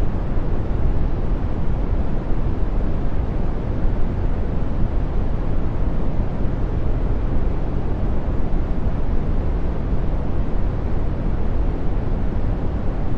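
Brown noise: a steady, deep rushing noise, strongest in the bass and softening toward the treble, with no tones or events in it.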